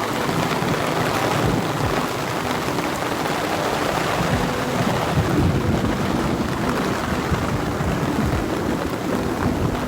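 Heavy rain pouring down in a thunderstorm, with thunder rumbling low, strongest around the middle.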